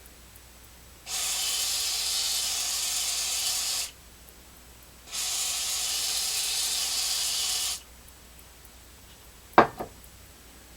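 Aerosol can of WD-40 spraying in two bursts of a few seconds each, a steady hiss, then one short knock near the end.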